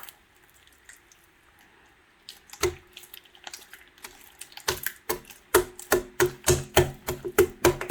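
Homemade borax slime being squeezed and worked by hand, making wet popping clicks: a single pop a third of the way in, then a quick run of sharp pops, about three or four a second, through the second half.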